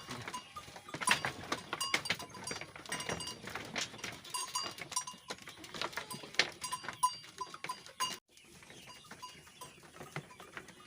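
Goats moving about with small bells clinking irregularly, mixed with scuffing and knocking. The sound cuts out briefly about eight seconds in.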